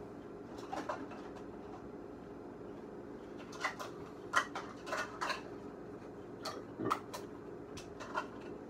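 Irregular clinks and knocks of kitchen cupboards and dishes being rummaged through, over a steady low hum.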